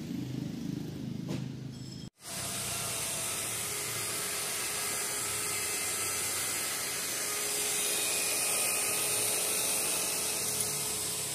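Handheld rotary car polisher running steadily with its pad on painted car panels: an even whirring hiss with a faint steady whine, starting after a sharp break about two seconds in.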